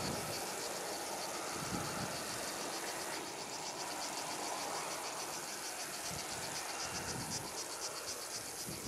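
Insects chirping in a steady high-pitched rhythm of several pulses a second, over the fading rush of a departing Airbus A321 jet.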